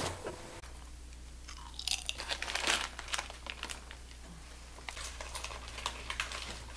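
Potato chips crunched and chewed, with a chip bag crinkling as a hand reaches into it, in irregular clusters of short crackles.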